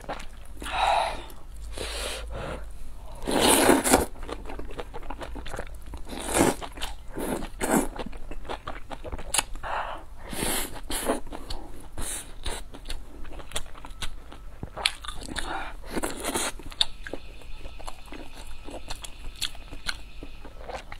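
A person eating a spicy maocai hot pot close to the microphone: slurping noodles and chewing mouthfuls of food and rice in irregular wet bursts, loudest about three to four seconds in.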